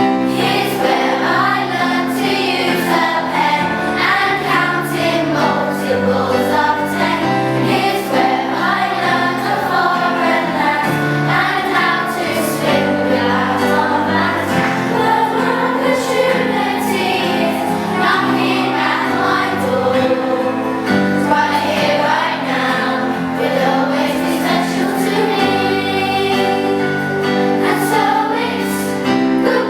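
A song sung by a group of voices over instrumental accompaniment.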